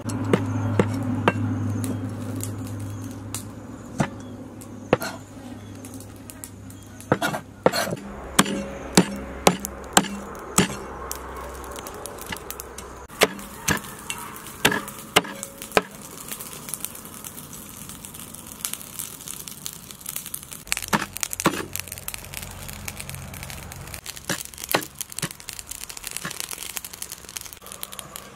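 Cleaver chopping a fish on a wooden chopping block: irregular sharp knocks, coming thickest in the middle and sparser later on.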